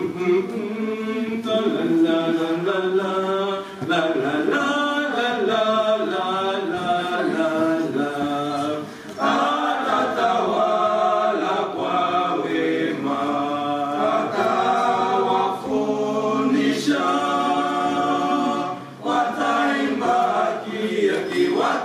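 Male vocal group singing an African carol a cappella in several-part harmony. The phrases are broken by short pauses, about three times.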